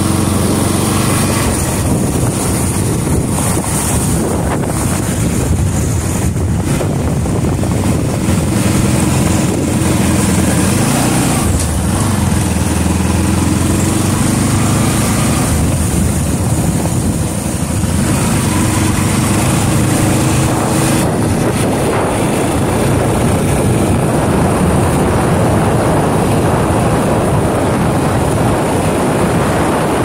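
Motorcycle engine running under the rider, its pitch rising and falling with the throttle, with wind buffeting the microphone. About two-thirds of the way through, the engine note fades under a steady rush of wind.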